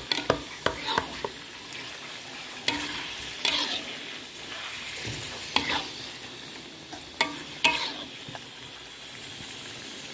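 Spatula stirring jengkol in rendang spice paste in a wok over a steady frying sizzle, with sharp scrapes and knocks of the spatula against the pan: several quick strokes in the first second, then one every second or two.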